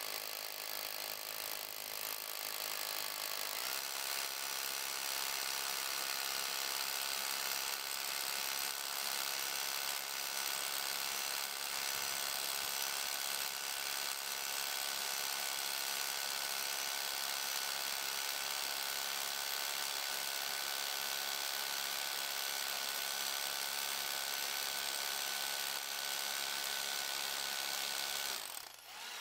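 Power drill running steadily as a masonry bit bores into a block of rock. Its pitch steps up slightly about four seconds in, and it stops near the end.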